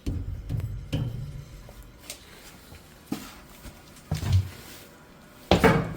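A metal tool knocking against an old boiler's clogged drain to break the blockage loose: a series of separate knocks about a second apart, the loudest near the end.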